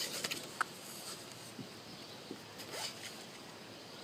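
Light rustling and clicking of an object being handled, with a quick cluster of clicks in the first second and a few scattered clicks after.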